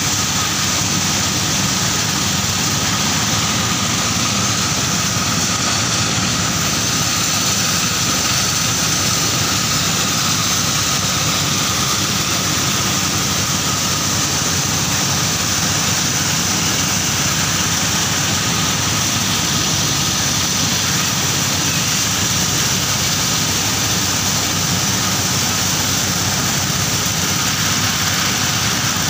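Engine-driven corn milling machine running steadily at constant speed, with a faint steady whine above its noise.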